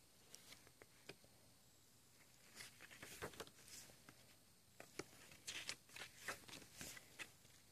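Faint rustling and crackling of a glossy paper CD booklet being handled and its pages turned, in a few short crackles around three seconds in and a busier patch near the end.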